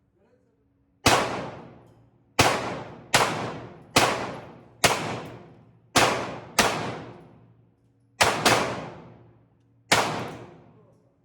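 Ten shots from a small-calibre sport pistol fired one after another at uneven intervals, some in quick pairs. Each shot is a sharp crack with a reverberant tail that dies away over about a second.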